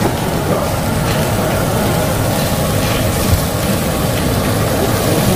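Meat sizzling on a charcoal-fired tabletop grill over a steady low rumble, with a light tap of the metal tongs on the grate about three seconds in.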